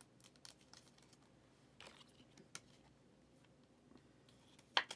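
Faint crinkling and light scattered clicks of plastic wrapping and cards being handled, with a sharper double click a little before the end.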